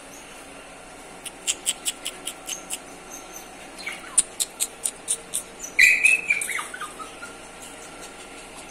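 Pomeranian puppy in a wire crate: a run of quick, sharp metallic clicks as it bites and paws at the wire bars, then a short squeak about four seconds in and a high whine falling in pitch about six seconds in.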